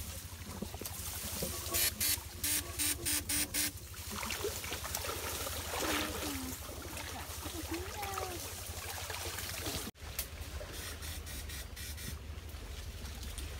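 Shallow stream water sloshing and splashing around the legs of a person wading through it. About two seconds in comes a quick run of about six short, evenly spaced buzzing pulses.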